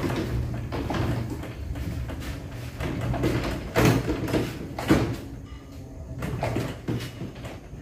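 Heavy subwoofer cabinet with line-array speakers stacked on top, pushed and sliding across a concrete floor, with two loud knocks about four and five seconds in.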